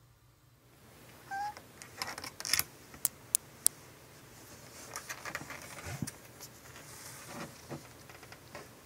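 A tuxedo cat sniffing and sneezing up close: short, sharp nasal snaps in small clusters, the loudest three coming quickly one after another in the middle. A brief squeaky note comes just before them.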